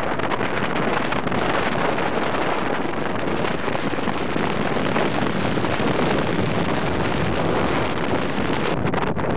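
Steady rush of wind on the microphone of a motorcycle riding at speed, with the low hum of its engine underneath.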